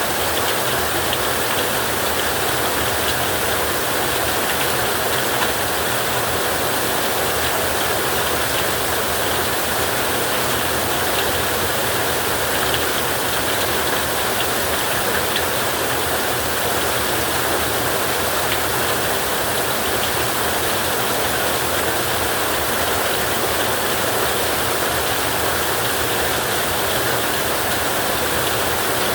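Heavy rain falling steadily on a tin roof: a dense, even hiss of drops with no let-up.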